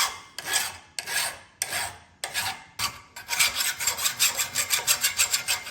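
Rasping, scraping strokes over a hard surface: slow single strokes at first, then about three seconds in a fast run of about five strokes a second.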